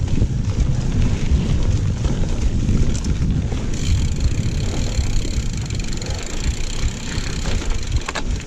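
Wind buffeting the microphone of a camera riding on a mountain bike, mixed with the rumble of knobby tyres rolling over a dirt trail.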